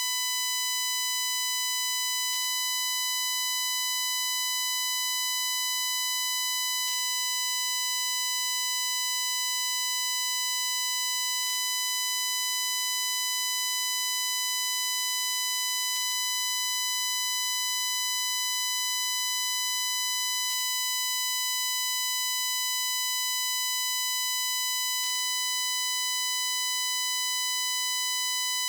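Recording glitch from a Shure MV88+ stereo microphone on a phone: a steady, extremely annoying high-pitched buzzing on one unchanging pitch with a stack of overtones, and a faint click about every four and a half seconds.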